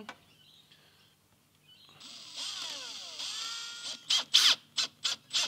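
Cordless drill driving a self-tapping screw, its motor whining for about two seconds with the pitch sliding down and back up as the screw bites. From about four seconds in comes a quick run of short, sharp, loud sounds, about four a second.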